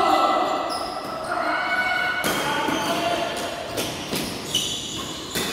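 Badminton rally sounds: about five sharp cracks of rackets hitting shuttlecocks in the second half, with sneakers squeaking on the court floor in the first half.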